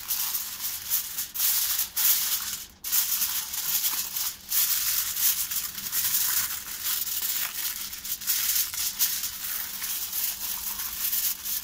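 Aluminium foil crinkling and rustling as it is pressed and crimped by hand around the rim of a baking dish, a continuous crackly rustle with a brief break about three seconds in.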